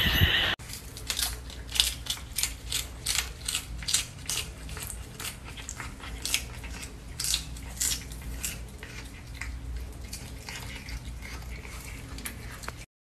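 A cat biting and chewing a piece of raw green vegetable, in quick crisp bites about two to three a second. A louder sound cuts off about half a second in, and the audio stops abruptly near the end.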